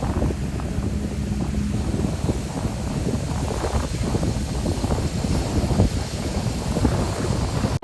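Corn-handling machinery running while shelled corn is moved from a storage tank into a transport tank, with heavy wind buffeting on the microphone. A faint steady hum runs through the first couple of seconds.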